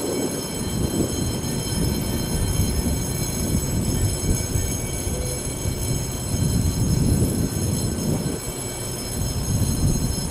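Low, uneven rumble of a Taiwan Railways EMU500-series electric multiple unit pulling away from the station, with a thin steady high whine over it.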